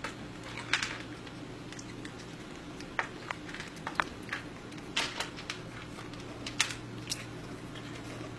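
A kitten nibbling at food from a handheld plastic bowl: scattered light clicks and short crunches, most of them in the middle of the stretch.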